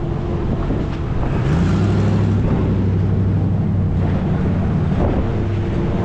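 Snowplow vehicle's engine running. About a second and a half in it climbs in pitch, holds the higher revs for a few seconds, then eases back.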